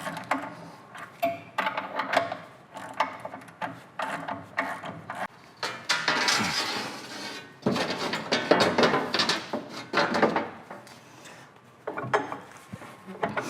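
Steel hand tools clicking and clinking as a 15/16 socket wrench and open wrench work a nut loose on the through-shaft of a bandsaw's lower drive wheel: many short sharp metal clicks, with a few longer scraping stretches in the middle.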